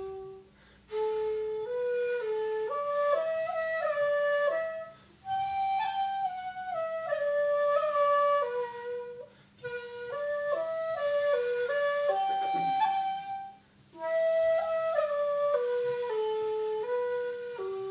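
Shakuhachi playing a solo melody of held notes moving in steps, in several phrases broken by short breath pauses.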